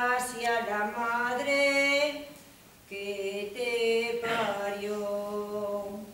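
A single voice singing a nana, a slow Spanish lullaby, unaccompanied, in long held notes. It sings two phrases with a short breath about halfway through.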